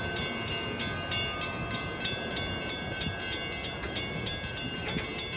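Amtrak Northeast Regional passenger coaches rolling slowly past, their wheels clicking in a steady rhythm of several clicks a second over a low rumble, with a steady high-pitched whine above.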